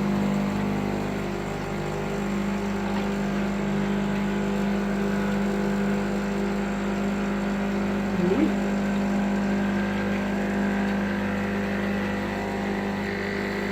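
Cookworks espresso machine's pump buzzing steadily as it pushes water through the coffee grounds during brewing.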